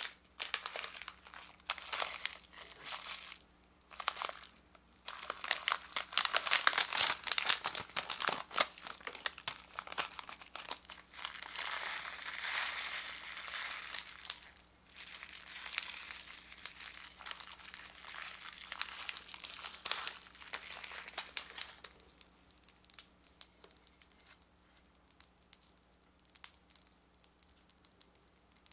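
Foil snack packet of popping candy crinkling as it is torn open, shaken and squeezed to pour the candy out. The crinkling stops about 22 seconds in, leaving sparse faint crackles.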